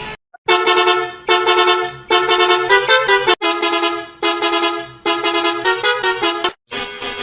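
Bus horn sounding a run of about seven short blasts, each a chord of several tones. Some blasts step through a few notes like a tune. Near the end it cuts abruptly to a different sound.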